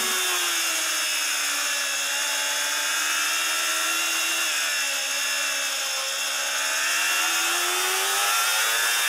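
A 600cc supersport racing motorcycle's engine heard onboard, running at high revs; its pitch sags slightly in the middle and climbs again near the end. A steady hiss of wind and rain spray runs underneath.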